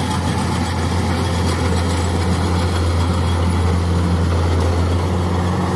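Kubota DC-105X combine harvester running under load while it cuts and threshes rice: a steady low engine drone over an even wash of machinery noise.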